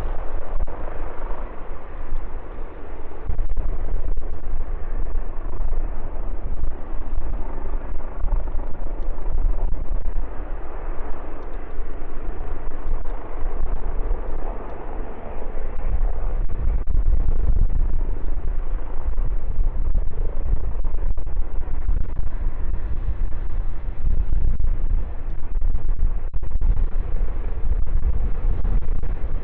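Strong wind buffeting a phone microphone, heavily distorted, over the continuous noise of jet aircraft engines. The rumble grows heavier in the second half, while the engine noise eases after the middle.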